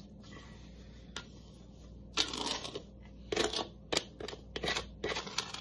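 Wet sourdough dough being handled on a table with hands and a dough scraper: a series of short scraping noises, the longest about two seconds in, the rest coming quickly in the second half.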